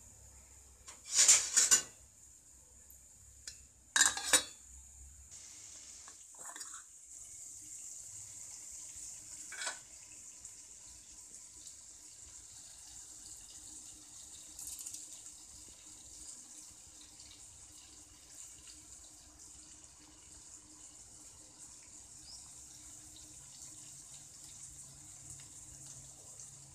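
Two loud clatters in the first few seconds, then a steady hiss of tomato rasam heating to a boil and frothing in a steel pot, with a few faint knocks.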